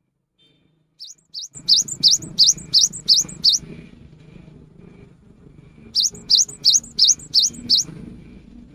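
Cinereous tit (gelatik batu) singing: two runs of quick, repeated rising whistled notes, about three a second. The first run of about eight notes starts about a second in, and the second of about six comes near the end, over a low background hum.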